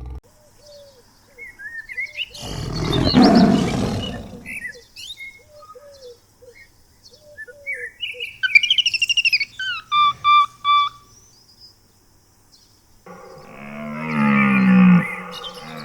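A series of separate animal calls: a noisy, roar-like call a few seconds in, short repeated chirps and a quick burst of high bird-like notes in the middle, then a low, drawn-out pitched call near the end.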